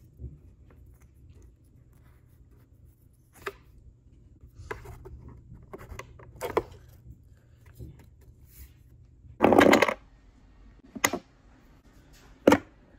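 Hands handling 3D-printed plastic pieces: scattered light clicks and taps, a brief loud scrape about two thirds of the way through, then two sharp clicks near the end.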